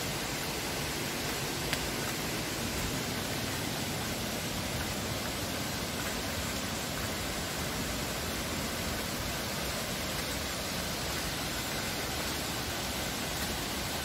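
Steady rushing of a waterfall, an even hiss of falling water with no change in level.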